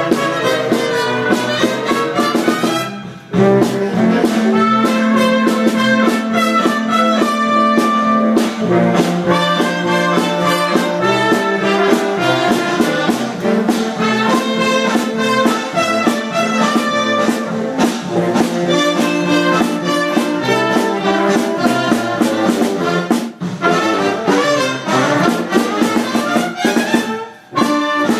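Live jazz from trumpet and saxophones playing together over a steady low line, with brief breaks about three seconds in and near the end.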